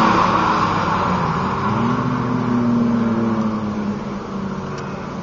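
Track-day cars' engines running hard past the circuit and fading into the distance, one engine note climbing about two seconds in as it accelerates.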